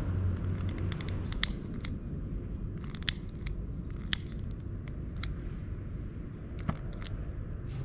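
Small handheld lighter clicked over and over while trying to light a pile of dry twigs: a string of sharp, irregular clicks.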